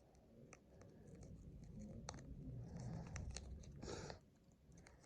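Faint handling of a paper sticker sheet and cardboard toy box as a sticker is peeled off and pressed on: small clicks and crinkles, with a short scratchy rustle about four seconds in.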